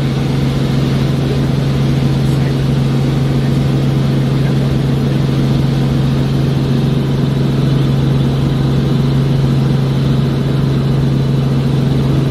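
Robinson R44 helicopter in flight, heard from inside the cabin: a loud, steady drone of engine and rotor with a strong low hum that does not change.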